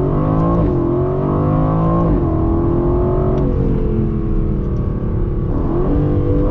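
The Aston Martin Vantage's AMG-derived 4.0-litre twin-turbo V8 under full-throttle acceleration, heard from inside the cabin. The engine note climbs and drops sharply at each upshift of the eight-speed automatic, three times in the first four seconds. It then holds a steadier, lower note and rises again near the end.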